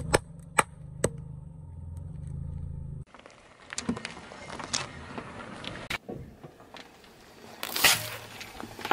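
A car tyre rolling slowly over small plastic tubs and toys and crushing them: a series of sharp cracks and pops, with a low engine hum under the first few seconds. The loudest crack comes near the end.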